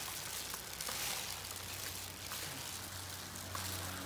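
Steady hiss of heavy rain, with a few faint rustles and ticks from plastic-gloved hands tossing salad in a plastic basin, and a low steady hum from about a second in.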